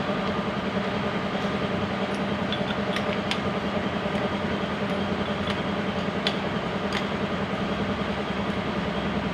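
Hyundai H100 engine running steadily with a fast, even clatter and a few sharp ticks over it.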